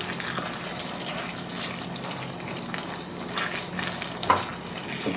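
Tomato, daikon and ground-pork stew sizzling in a frying pan while a spatula stirs and scrapes through it, with a sharper knock about four seconds in. The sound cuts off suddenly at the end.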